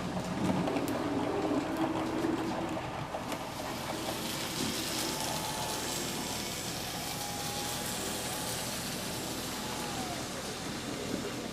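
HO-scale model train running on the layout: a steady rushing hiss of wheels on track, with a faint motor whine that drops in pitch near the end.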